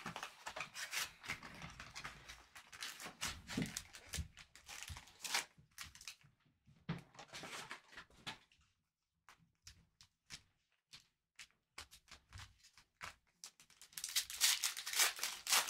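Trading-card pack wrapper crinkling and tearing, with clicks of cards being handled. The crackle is dense for the first five seconds or so, thins to scattered clicks, and returns as a loud burst of crinkling near the end.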